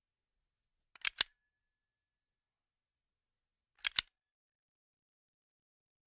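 A sharp mechanical double click, played twice about three seconds apart with silence between.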